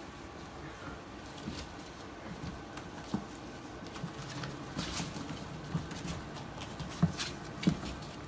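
Six-week-old puppies moving and playing on wood-chip bedding: a patter of small paws with scattered clicks and rustles, and a few louder sharp knocks, one about three seconds in and two close together near the end.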